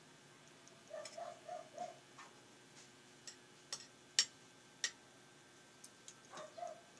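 Eating sounds at the table: scattered sharp clicks and smacks, four loud ones in the middle, as a woman eats with her fingers. A few short low pitched sounds come about a second in and again near the end.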